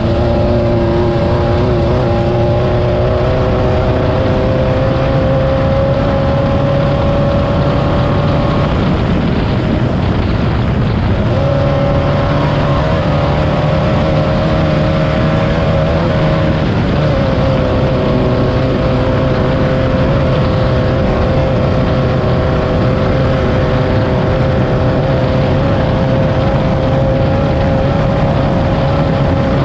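Class 9 off-road race car's air-cooled VW engine running hard. Its pitch climbs slowly over the first several seconds, drops and wavers around nine to eleven seconds in, then holds fairly steady, over a constant rushing noise.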